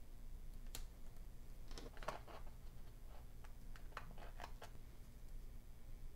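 Faint, scattered light clicks and paper rustles from handling a discbound paper planner: pages lifted and shifted, and sticker pieces placed with tweezers.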